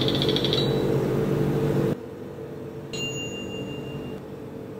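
A drinks vending machine's mechanism whirs, with a click about half a second in, and cuts off about two seconds in. About three seconds in comes a single bright electronic ding that rings out for about a second.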